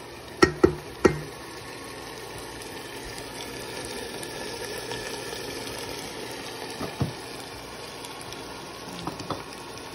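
Minced beef and potato cubes sizzling in oil in a steel pot, frying on a low flame. A wooden spoon knocks sharply against the pot: three times in quick succession about a second in, once about seven seconds in, and twice near the end.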